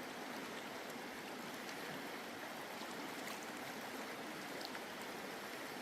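Mountain creek flowing: a steady rushing of water over rocks.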